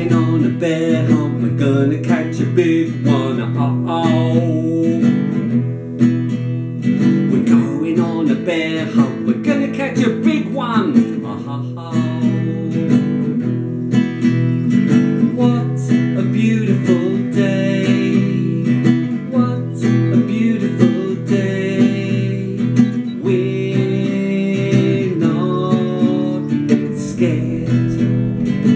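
Nylon-string classical guitar strummed and picked in a steady rhythm, playing an instrumental passage.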